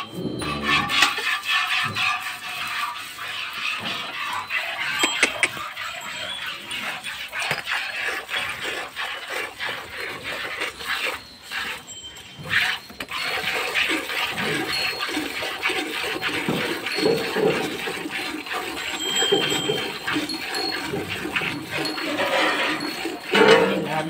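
Cow being milked by hand: repeated squirts of milk from the teats hitting a steel bucket that already holds frothy milk, with a brief break about halfway through.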